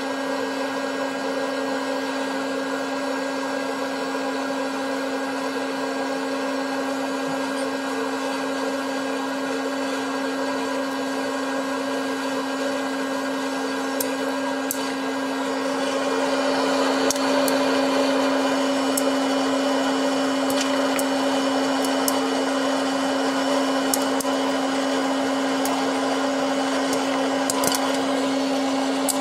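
Hot-air popcorn maker running: its fan motor gives a steady hum over a rush of blown air. About halfway through, kernels start popping with scattered sharp pops, and the machine gets a little louder.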